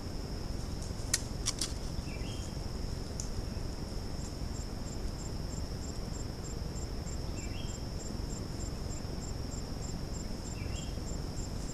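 Insects in the forest: a steady high-pitched drone throughout, joined about four seconds in by a regular chirp repeating about three times a second. A few sharp clicks come near the start, and there are three short rising chirps.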